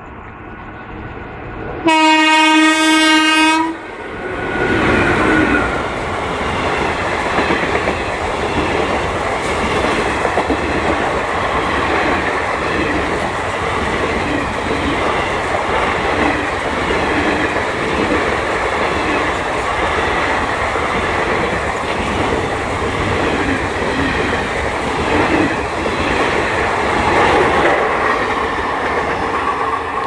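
WAP-4 electric locomotive sounds one long, loud horn blast about two seconds in, then an express passenger train runs past at speed, its coach wheels clattering over the rail joints in a steady rumble.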